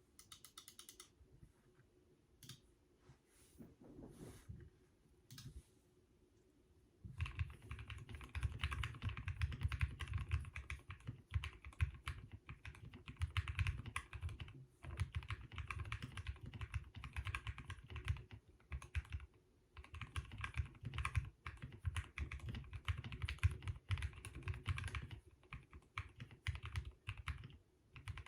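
Custom mechanical keyboard with lubed Turquoise Tealio linear switches on an aluminum plate and WoB keycaps being typed on, a deep, dampened clack of keystrokes. A few faint isolated clicks come first, then fast continuous typing starts about a quarter of the way in, with a few short pauses.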